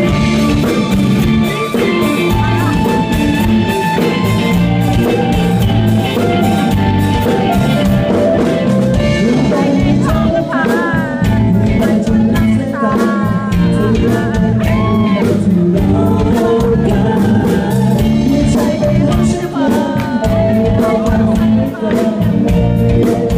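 Live rock band playing: electric guitars, bass and drums, with a keyboard. A male singer comes in about ten seconds in and sings over the band.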